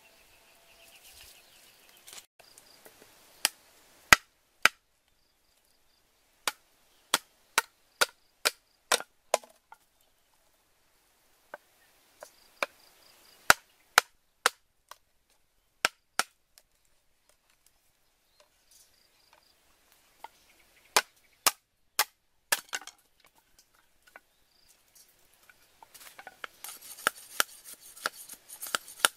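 Cleaver chopping into an upright bamboo tube on a round wooden chopping block: sharp single knocks in runs of several, with pauses of a few seconds between runs.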